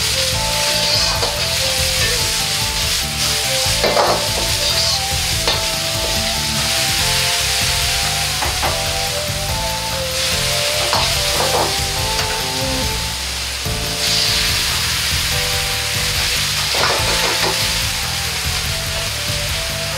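Vegetables stir-frying in a hot wok: a steady sizzle, with a metal ladle scraping and knocking against the wok now and then. Partway through, rice wine, soy sauce and broth go in, and the pan ends up bubbling and steaming.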